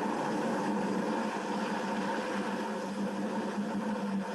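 Blender running steadily, chopping pears into a purée, with a constant motor hum under a broad whirring noise.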